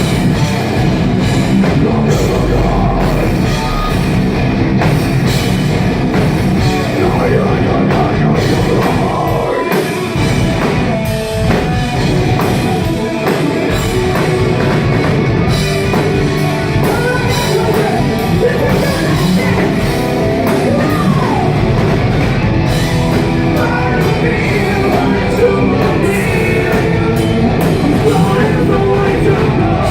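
Metal band playing live with drums, guitars and singing, loud and steady throughout. Recorded on a phone that can't handle the volume, so the sound is harsh and distorted.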